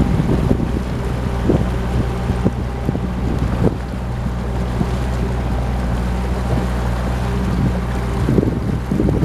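A sightseeing boat's engine running steadily, heard on board, with wind buffeting the microphone in irregular gusts.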